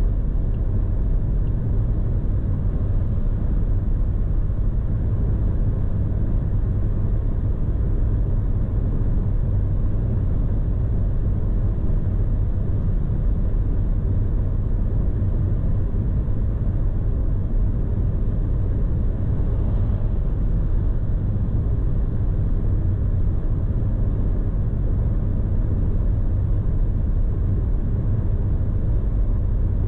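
Steady cabin drone of a BMW 118d (F40) cruising at a constant 120 km/h on cruise control: a low, even rumble of road, wind and four-cylinder diesel engine noise with no changes in pitch or level.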